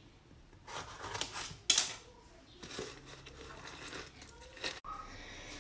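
Lemon being juiced by hand on a plastic citrus reamer: irregular scraping and squishing strokes as the half is pressed and twisted, with one sharp knock about two seconds in.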